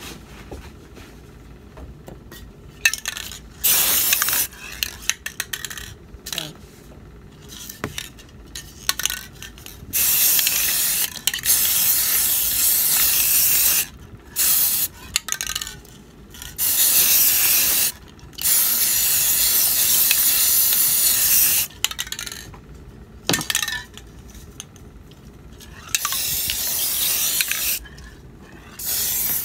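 Aerosol spray paint can spraying in repeated bursts of hiss, several lasting a few seconds, with short pauses and light clicks between them, as paint is laid onto water for hydro dipping.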